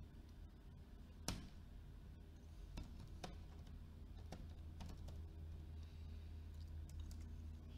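Typing on a computer keyboard: faint, irregularly spaced keystrokes with a slightly louder one about a second in, over a steady low hum.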